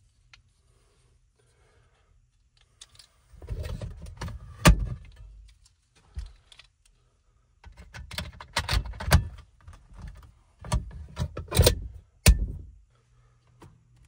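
Hands working a metal fused electrical disconnect box: clattering of its hinged cover and fuse holder, starting about three seconds in, with several sharp clicks and knocks.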